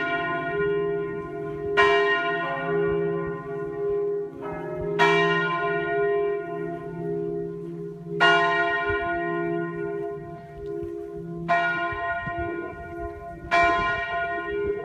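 Church bells ringing: a bell struck at irregular intervals of about two to three seconds, each stroke ringing out and fading. Beneath the strokes runs a continuous low ringing.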